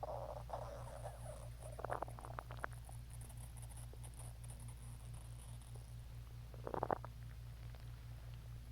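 Hungry stomach growling and gurgling in short bursts: a gurgle at the start, another about two seconds in and a louder one near seven seconds, over a steady low hum.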